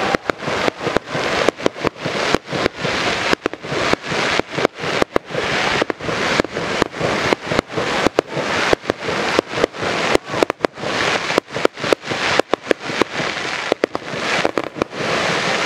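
Fireworks display going off in a dense, continuous barrage: rapid bangs and crackling, several a second, throughout.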